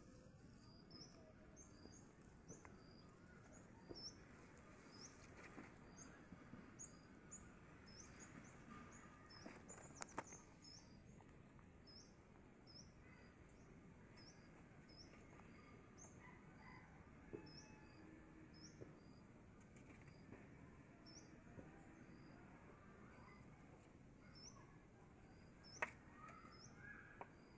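Near silence, with faint, short, high chirps repeated about twice a second over a steady faint high whine. A couple of faint clicks, one about midway and one near the end.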